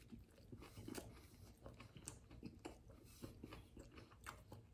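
Faint chewing of a mouthful of fried chicken sandwich, with soft scattered wet clicks and small crunches.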